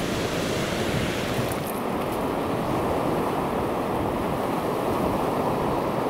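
Steady rush of sea surf, mixed with wind blowing over the microphone.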